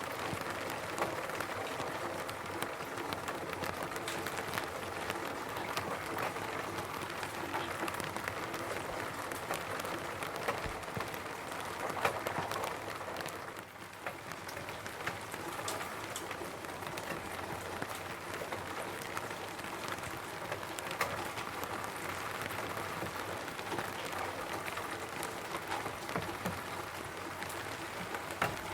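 Rain falling on a roof: a dense, steady patter of drops with single sharper drop ticks scattered through it. The rain eases briefly a little under halfway through.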